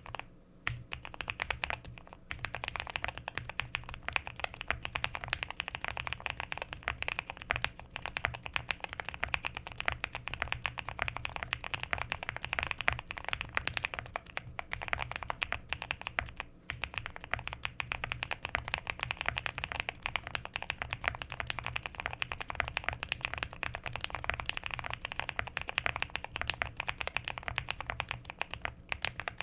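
Continuous fast typing on a QK65 65% mechanical keyboard with linear frankenswitches (Nixdorf tops, Boba LT stems, Lilac bottoms), a POM plate, full foam and GeekArk PBT keycaps. The keystrokes come as a dense stream, with brief pauses about half a second in, at about two seconds and at about sixteen seconds.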